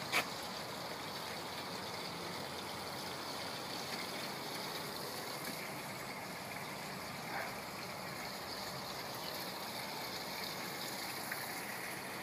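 Steady background hiss with no engine running, broken by a sharp click right at the start and two fainter clicks later.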